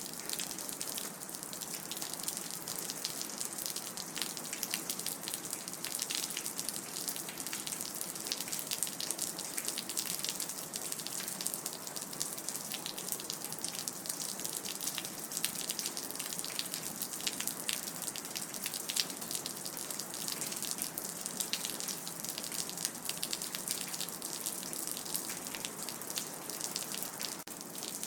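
Rain dripping and splashing: a steady hiss of falling water dense with many small drip clicks.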